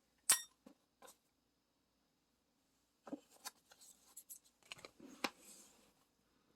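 Small parts being handled by hand: a sharp click early, two faint ticks, then from about three seconds in a stretch of rustling and handling with several light clicks.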